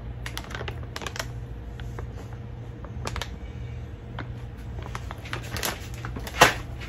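Plastic food pouch crinkling and crackling as it is handled, in scattered light clicks, with one louder knock about six seconds in as it is set down on the counter.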